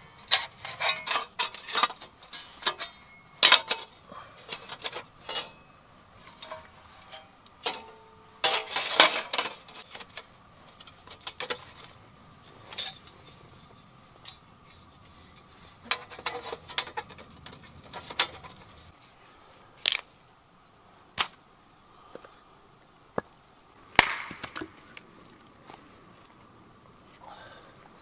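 Metal plates of a folding Petromax fire box clinking and clacking as they are handled and slotted together: a busy run of sharp metallic clicks at first, then scattered single knocks.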